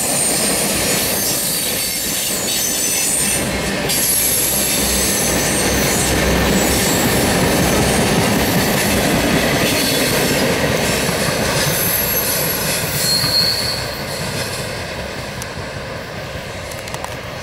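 Freight train of tank cars rolling past: a steady rumble of steel wheels on rail with a thin, high-pitched wheel squeal. It fades about 14 seconds in as the cars move off.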